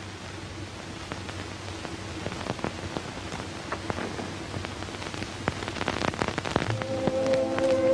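Rain pattering, the drops growing denser and heavier over several seconds. Film score music comes in with held notes near the end.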